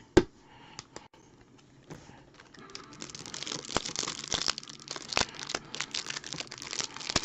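A football card pack's wrapper being torn open and crinkled, a dense crackle with sharp snaps that starts about three seconds in, after a fairly quiet start with a few light clicks.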